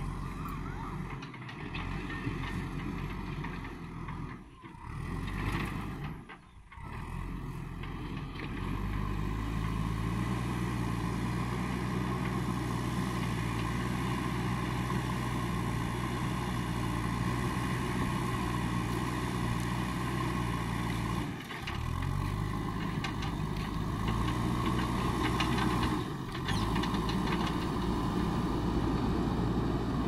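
JCB backhoe loader's diesel engine running under work. It is uneven for the first several seconds, then settles into a steady hum with two brief dips in its note. It grows a little louder near the end as the machine drives closer.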